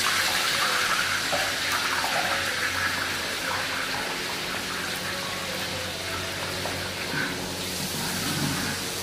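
Sliced onions deep-frying in hot oil in a large wok: a steady, rushing sizzle that slowly dies down as the oil settles, over the steady hum of an exhaust fan.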